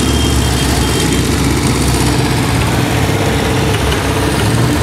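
Engines of vintage open-wheel race cars idling steadily as the cars roll slowly past at walking pace.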